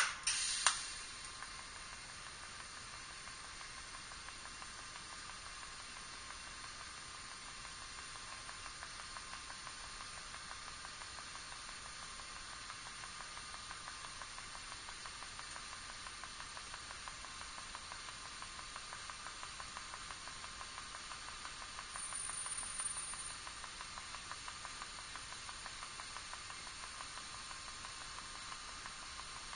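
A pulse TIG welder arc, struck with a sharp crackle and then held as a steady, high-pitched hiss with faint, even ticking.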